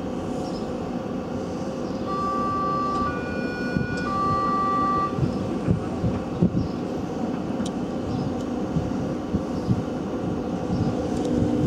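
Berlin S-Bahn class 480 electric train standing at the platform, its on-board equipment humming steadily. About two seconds in, a signal of three successive notes sounds for about three seconds.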